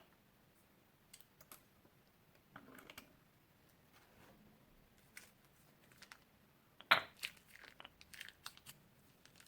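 Crunchy slime crackling and popping in scattered small clicks as it is pressed and worked, with the loudest snap about seven seconds in followed by a quick run of crackles.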